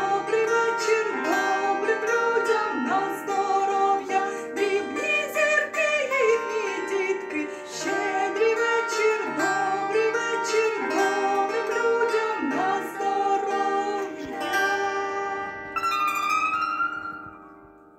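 A woman singing a Ukrainian folk carol (shchedrivka) to a plucked string accompaniment. The song ends about three-quarters of the way in, and the last chord rings and fades away.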